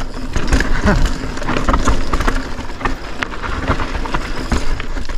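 Polygon Siskiyou full-suspension mountain bike descending rocky singletrack: tyres rolling and knocking over rocks and roots, with the bike rattling at every hit.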